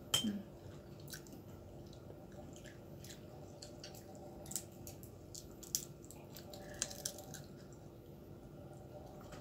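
Cooked crab being eaten by hand: small shell cracks and wet picking sounds with chewing, a few sharp clicks scattered through, the loudest just at the start.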